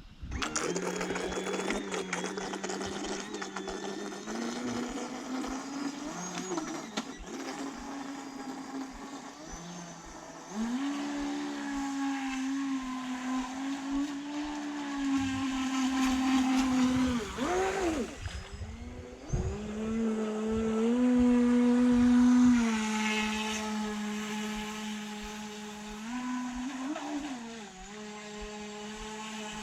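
Radio-controlled boat's motor running with a steady whine that steps up and down in pitch as the throttle changes, dipping sharply and climbing back twice.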